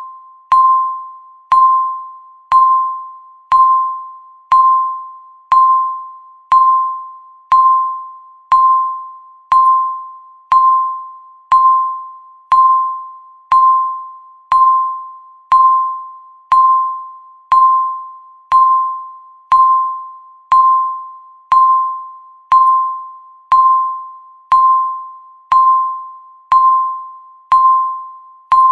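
Countdown timer beep: a single mid-pitched electronic tone, like a soft chime, sounding once a second, each beep starting sharply and fading away before the next.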